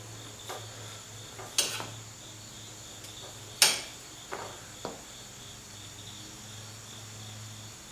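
Metal hand tools clinking against steel nuts and bolts while they are undone: about five sharp metallic clinks, the loudest about three and a half seconds in, ringing briefly.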